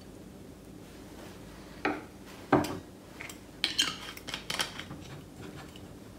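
Knocks and clinks of a steel jigger and a glass vodka bottle being handled and set down on a wooden board. There are two sharp knocks, the louder about two and a half seconds in, then a quick run of lighter clinks.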